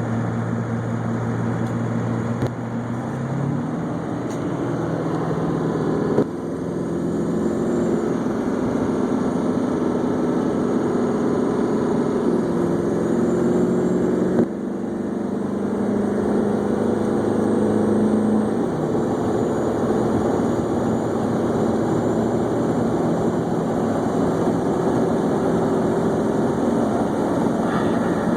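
Straight-piped Ford 7.3 L Powerstroke V8 turbodiesel heard from inside the cab, with the turbo whistling over the diesel's running note. The engine note shifts in steps a few times.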